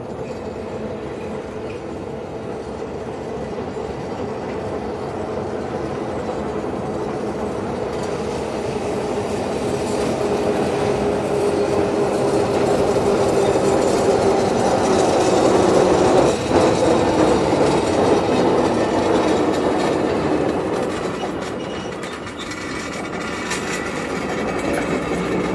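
A 600mm narrow-gauge electric mine locomotive approaches and passes hauling coal wagons. It gets steadily louder with a steady whine that falls slightly in pitch, then the wagons rattle and clatter over the track, with one sharp clank past the middle.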